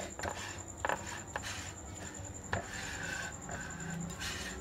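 Spatula scraping and knocking against a glass mixing bowl while stirring flour into melted butter and sugar: a steady rubbing scrape with irregular sharp clicks as the spatula hits the glass.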